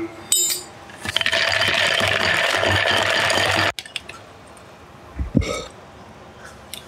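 A steel spoon stirring buttermilk in a plastic jug: liquid swishing with the spoon rattling against the jug, steady for a few seconds and then stopping abruptly. Shortly after comes a brief slurp as a spoonful is tasted.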